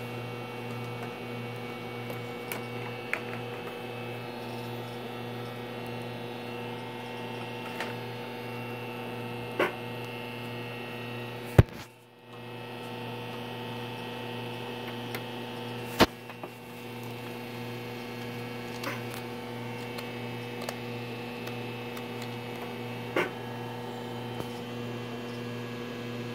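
A running Cutera XEO laser console giving a steady electrical hum with several overtones, broken by a few sharp clicks, the loudest about halfway through.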